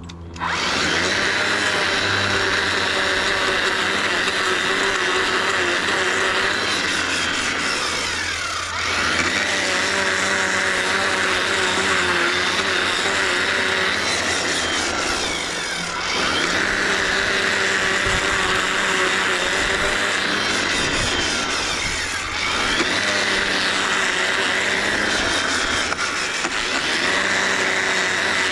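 String trimmer running steadily at high throttle. The pitch drops and climbs back three times as the throttle is eased off and squeezed again.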